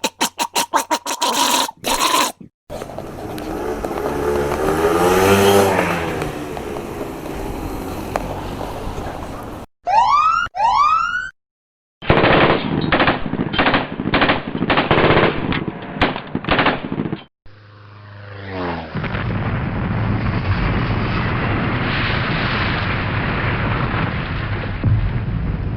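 A run of separate sound effects: rapid pulsing that cuts off about two seconds in; a motorcycle passing by, its engine pitch rising and then falling; two rising 'woop woop' siren whoops; bursts of M16 assault-rifle fire; then the steady low rumble of a plane crash.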